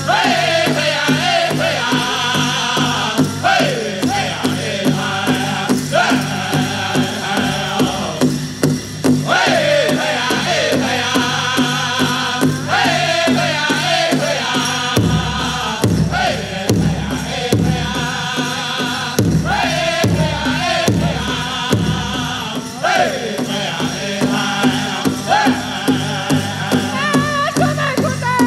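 Powwow drum group singing a grass dance contest song: a chorus of voices chanting together over a steady beat on a large powwow drum.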